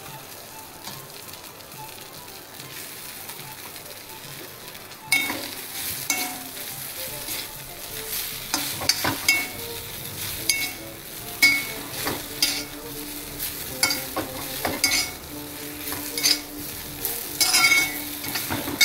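Idli pieces frying and sizzling in a little oil in a pan. From about five seconds in they are stirred, with scraping strokes against the pan roughly once a second.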